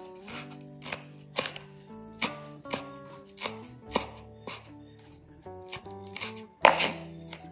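Kitchen knife chopping dried shrimp on a wooden cutting board, in uneven strikes about two a second, the loudest a little before the end.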